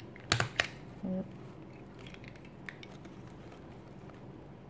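Small handheld stapler driving a staple through folded layers of fabric: two sharp clicks in quick succession near the start.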